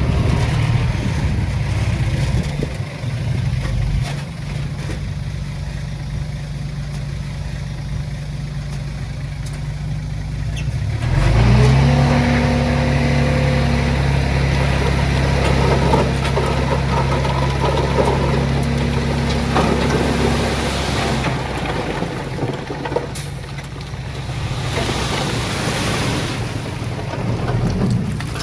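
Heavy-equipment diesel engine running under load. It revs up sharply about eleven seconds in, holds high and steady for about ten seconds, then settles back to a lower note.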